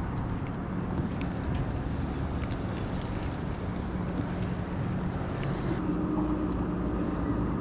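A boat motor running with a steady hum. A second, higher tone joins it about six seconds in.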